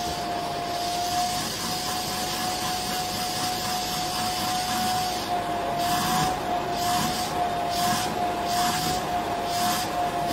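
Vacuum cleaner running with a steady high whine over its suction noise, its hose nozzle being drawn over a cat's fur. From about five seconds in, short swishes come and go as the nozzle moves along the coat.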